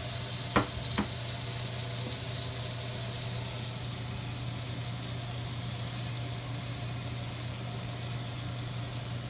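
Steak searing in butter and shortening in a cast-iron skillet: a steady, even sizzle. Under it, the range hood fan running on high as a steady low hum, and two short clicks about half a second and one second in.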